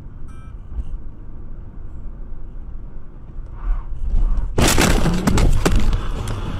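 Car crash heard through a dashcam inside the car: a steady low road rumble, then about four and a half seconds in a sudden loud crash with several sharp knocks, lasting about a second and a half.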